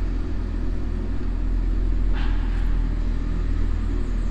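Honda CRX's four-cylinder engine and the road running steadily with the car in motion, a deep even hum and rumble, with a short hiss about two seconds in.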